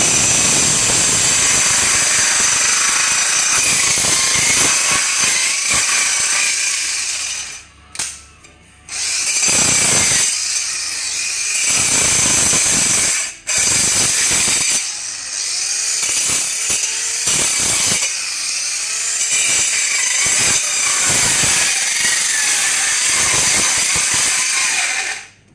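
Handheld electric circular bone saw running and cutting through the bone of a bone-in beef loin to take off a chop, a loud, steady high-pitched whine. It stops for about a second and a half roughly a third of the way in, cuts out briefly about halfway, and stops just before the end.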